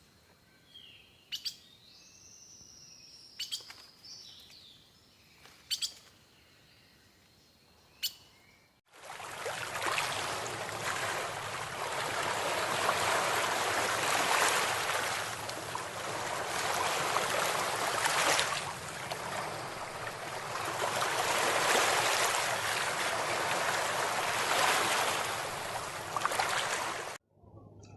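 Birds chirping faintly with four sharp clicks, then after an abrupt cut about nine seconds in, a loud steady rushing noise that stops abruptly near the end.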